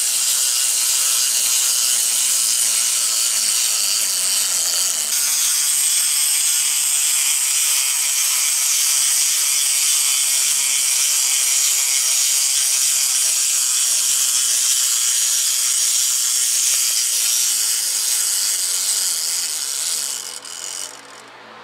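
Clockwork gear train of a small plastic Chuck E. Cheese wind-up toy running as the toy walks: a steady, high whirring that fades and stops near the end.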